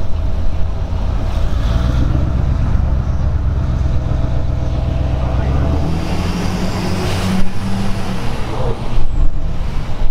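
Pickup truck with a 6.6-litre Duramax LML turbo-diesel V8 driving slowly, heard through the open passenger window: a steady low engine and road noise, the engine note rising about six seconds in.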